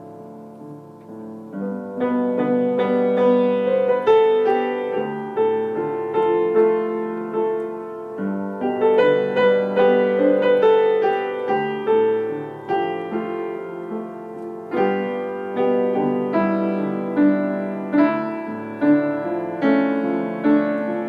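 Background piano music, a gentle melody of struck notes, soft for the first couple of seconds and then fuller.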